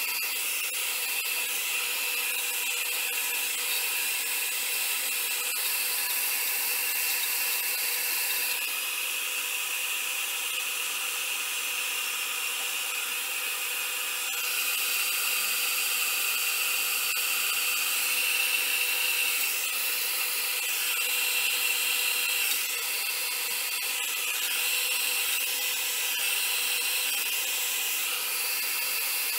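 Handheld hot-air blow dryer running steadily, a motor whine over rushing air, blowing on wet alcohol ink to spread and dry it. Its sound shifts slightly a few times.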